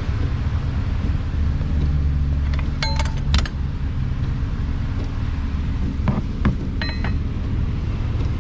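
Car engine idling steadily, with sharp metallic clinks twice in quick succession about three seconds in and again a few times around six to seven seconds.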